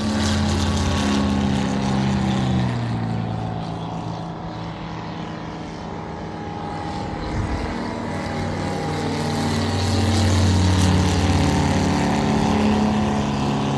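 Propeller airplane engine droning overhead, steady and even. It fades in the middle and swells louder again toward the end, as a plane passes.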